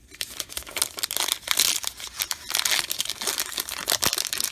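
Plastic wrapper of a baseball card pack crinkling and crackling in the hands as it is worked open.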